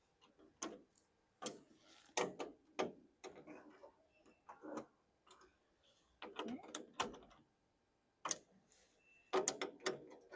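Irregular light clicks and knocks, a dozen or so scattered unevenly, some with a short ring after them.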